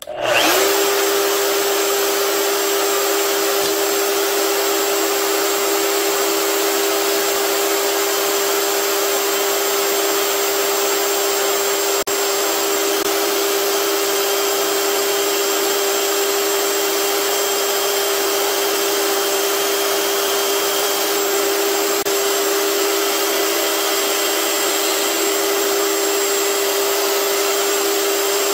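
Band saw and its dust extraction switching on and running steadily, a constant rushing noise with a steady hum, while the blade cuts a wooden knife-handle blank.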